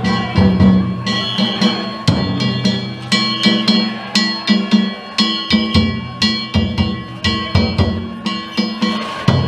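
Danjiri festival music (narimono): drums and hand gongs struck in a fast, steady rhythm, with the clang of the gongs ringing over the booming drum.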